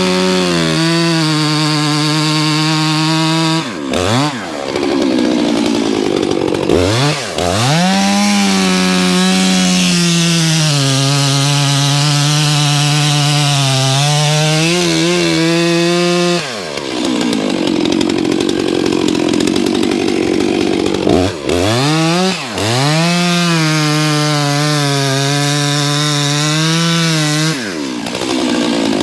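Stihl chainsaw running at full throttle in three long runs, its pitch sagging slightly under load while cutting through lake ice, with the revs falling away briefly between runs.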